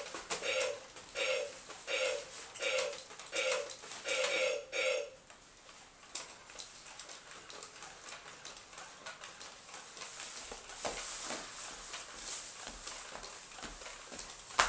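Robosapien toy robot giving out a string of about seven evenly spaced electronic blips, roughly one every 0.7 seconds, over the first five seconds. After that comes a quieter stretch of faint whirring and clicking from its motors as its arms and legs move.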